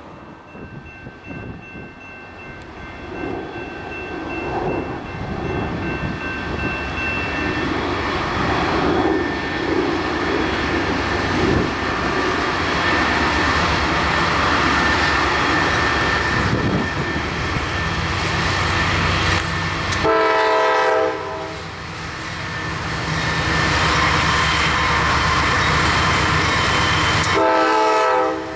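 Freight train approaching and passing, its locomotive engines and wheels on the rails growing louder over the first half and then staying loud. The locomotive's multi-chime air horn sounds twice: once about two-thirds of the way in for about a second and a half, and again briefly near the end.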